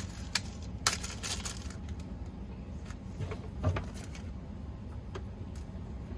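Scattered small clicks and knocks of a Keurig coffee maker's plastic housing and parts being handled as it is taken apart, over a steady low hum.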